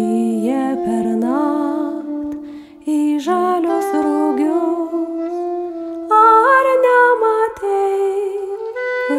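Slow, gentle music: a wordless melody hummed by a woman over soft instrumental accompaniment, pausing briefly between phrases.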